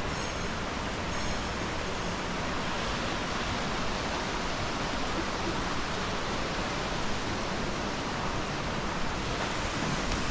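A small stream and its little waterfall flowing over rocks: a steady, even hiss of running water.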